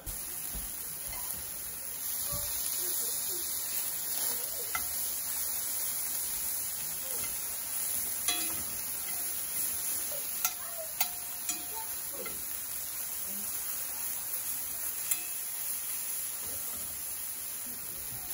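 Chicken pieces sizzling steadily as they fry in a cast-iron skillet, with a few sharp clicks of metal tongs against the pan as the pieces are turned.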